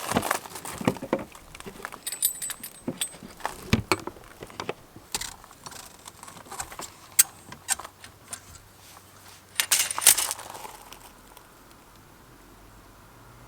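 A string of clinks, clicks and small metallic rattles, like keys or other small hard objects being handled, busiest in the first ten seconds with a loud cluster about ten seconds in, then dying down.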